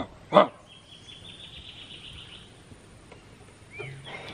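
Two short, loud calls right at the start, then a rapid, high-pitched trill from an animal in the flooded forest lasting about two seconds.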